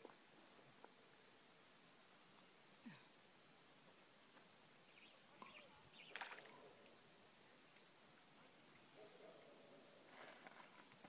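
Near silence: faint outdoor ambience with a steady high-pitched hiss and a faint, regular high pulse about three times a second that stops near the end, plus a soft click or two.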